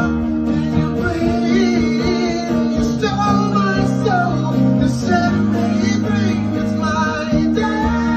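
Live acoustic guitar strummed with a man's voice singing over it.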